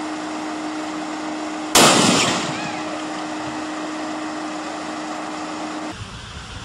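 A steady hum, then about two seconds in a single loud bang as power-line equipment on a utility pole short-circuits and blows, trailing off over about half a second. Near the end the sound changes to a low rushing noise.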